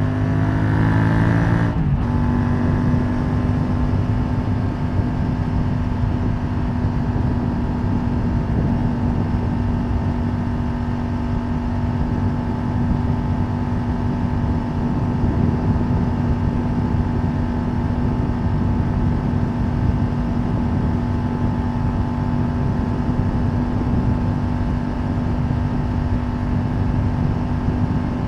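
Triumph Tiger 900 Rally Pro's inline three-cylinder engine through its stock exhaust, heard onboard at speed. It rises in pitch under acceleration, the revs drop sharply about two seconds in, and it then holds a steady drone at cruising speed over wind and road noise.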